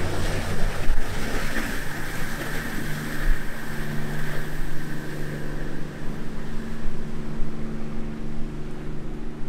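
Center console boat's engines running at speed with a steady drone, over the rushing splash of its hull through rough chop.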